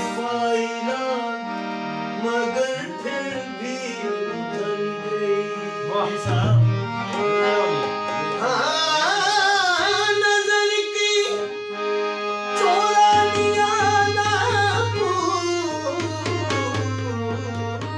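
Harmonium playing, with a man singing a Punjabi–Saraiki folk geet in long, drawn-out notes.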